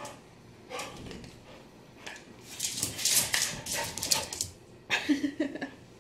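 A dog vocalizing, with bursts of scuffling and rustling through the middle and a short, low, bark-like call about five seconds in.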